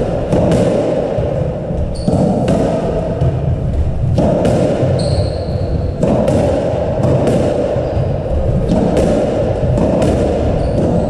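Squash rally: the ball cracking off rackets and the walls about every second or so, with brief high squeaks of court shoes on the wooden floor, over a constant background hum.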